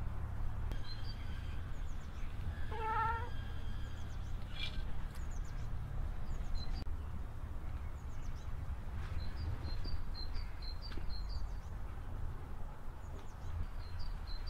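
A cat meowing once, a short wavering call about three seconds in, over a steady low rumble, with faint high chirps scattered throughout.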